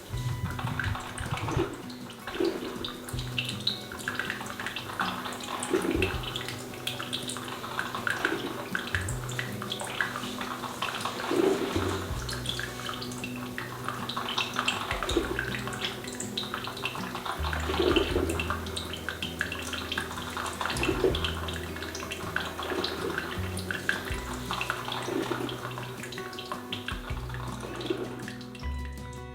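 Breville Iced Coffee Maker brewing: hot water gurgling and spluttering through the machine as coffee streams into a tumbler of ice, with irregular bubbling surges.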